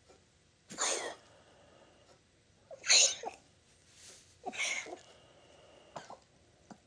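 Small dog coughing in three harsh bursts about two seconds apart, the middle one the loudest: a cough that comes as he wakes from a nap, which the owner tags as kennel cough.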